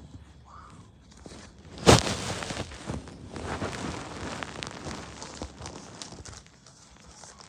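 A package being handled for opening: a sharp thump about two seconds in, then several seconds of rustling and crackling with small clicks, dying down near the end.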